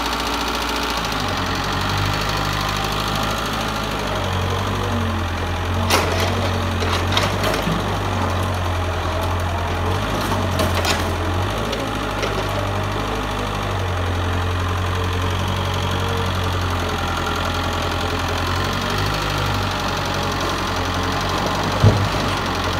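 Mitsubishi excavator's diesel engine running steadily under work. Sharp knocks come in a cluster about six seconds in and again around ten seconds, with one loud knock near the end.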